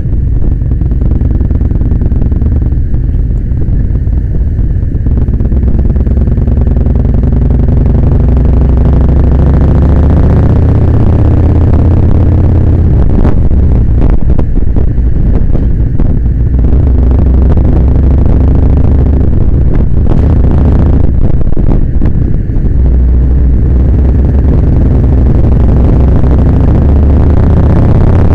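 Kawasaki Vulcan Nomad motorcycle's V-twin engine running under way through traffic, heard as a loud, steady low rumble. The engine note climbs a few seconds in as the bike accelerates.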